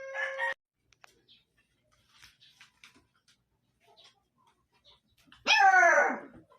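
Puppy yelping: a short, steady-pitched yelp at the very start, then a louder yelp about five and a half seconds in that falls in pitch, with faint small clicks and scuffs in between.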